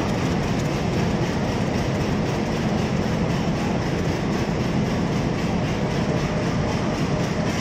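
Train running along the track beside the platform, its wheels on the rails giving a steady noise with some clickety-clack.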